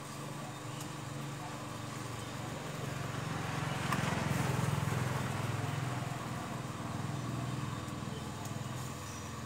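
A motor running with a low hum that swells to its loudest about halfway through, then eases off.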